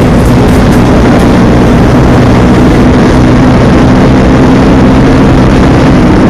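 Motorcycle engine running at a steady cruising speed while riding, mixed with heavy wind noise on the microphone.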